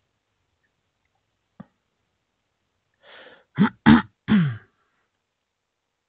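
A person clearing their throat, about three and a half seconds in: a breathy intake, then three short, harsh bursts, each dropping in pitch. A faint click comes earlier.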